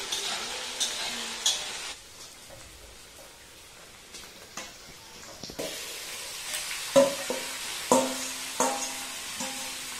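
Spice paste frying in oil in an aluminium wok, sizzling while a metal spatula stirs and scrapes through it. About two seconds in the sizzle drops away, and it returns after the middle as raw duck meat goes into the pan, followed by four ringing metal clanks as the spatula knocks meat out of a steel bowl against the wok.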